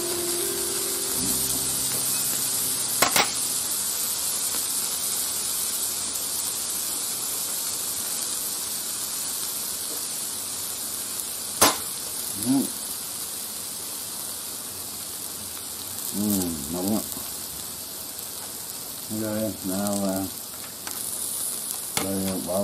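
Beef, shrimp and mushrooms frying in an oiled metal pan, a steady high sizzle, with two sharp clicks about three seconds in and again near twelve seconds.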